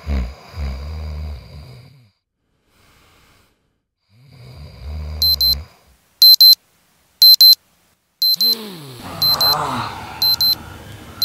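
A man snoring in two long breaths, then an electronic alarm clock beeping in short bursts of rapid high beeps about once a second, starting about halfway through. Near the end a sleepy groan and the rustle of bedding come in as the sleeper stirs.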